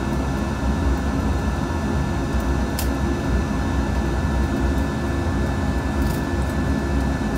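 Air purifier's fan running steadily, an even rushing hum with a faint high steady whine over it.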